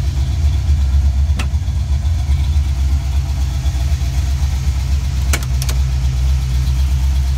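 The 1988 Mustang GT's 302 (5.0 L) small-block Ford V8, fitted with a Trick Flow Trackmax cam, long-tube headers and Mac mufflers, idling with a steady deep rumble. A sharp click comes about a second and a half in, and a quick cluster of clicks about five and a half seconds in.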